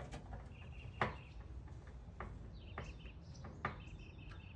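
A few scattered sharp clicks and taps from working on the sending unit by hand, the loudest about a second in. Birds chirp in short repeated high calls in the background.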